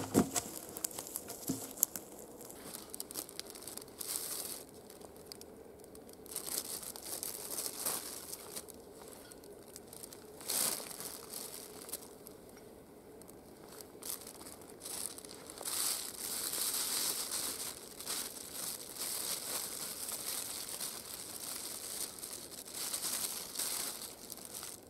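Plastic bag crinkling and rustling as gear is pulled out of it, louder in the second half. There is a sharp wooden knock at the start and a lighter one a second or so later.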